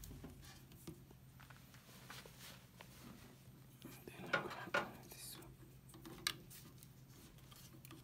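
Faint handling sounds of a hard drive and its cable plugs: small rubs and a few sharper clicks, the clearest a little over four seconds in, near five seconds and about six seconds in, over a low steady hum.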